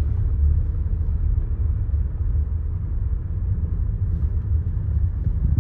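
Car driving slowly, heard from inside the cabin: a steady low rumble of engine and tyres on an unpaved track.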